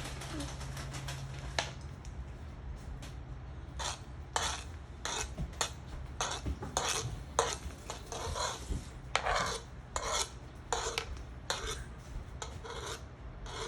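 Kitchen knife chopping cilantro by hand on a cutting board: a run of short, irregular strokes about two a second, starting about four seconds in after a few lighter scrapes.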